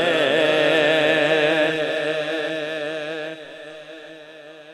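A man singing a naat through a microphone and sound system, holding one long wavering note at the end of a line; it fades away over the last second and a half.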